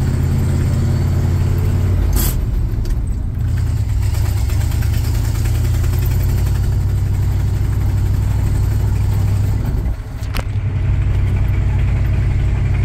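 1975 Chevrolet C65 truck's engine running steadily while the truck drives, heard from inside the cab. Near the end the engine note drops briefly and picks up again as the four-speed manual transmission is shifted, with a sharp click about two seconds in and another at the shift.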